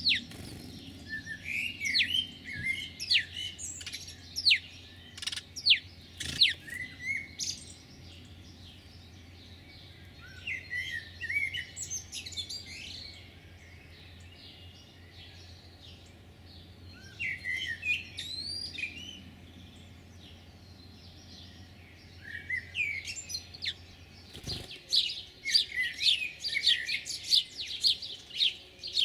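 Small birds chirping in bouts of quick, high, falling chirps, with short quiet pauses between bouts; the densest run of chirping comes near the end.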